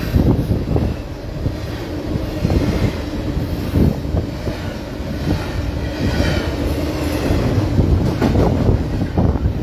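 Double-stack intermodal container well cars of a freight train rolling past close by: a loud, steady rumble of steel wheels on rail, with irregular clanks and knocks from the wheels and car bodies.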